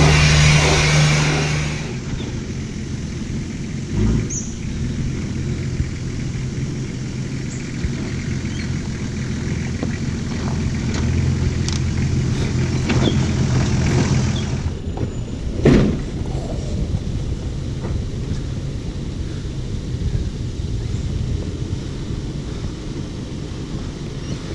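Four-wheel-drive vehicle's engine running at low speed with a steady drone, louder for the first two seconds and then quieter, with a few knocks and thumps, the loudest about two-thirds of the way through.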